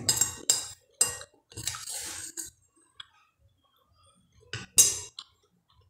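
Metal spoon scraping and clinking on a glass plate, several short strokes in the first couple of seconds, then a louder short sound about three-quarters of the way through as the spoon goes to the mouth.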